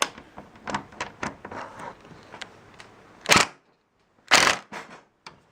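Light clicks and knocks of hardware being handled, then two short bursts of a power driver, about a second apart, as a fastener is driven to pull a garage-door bracket in tight.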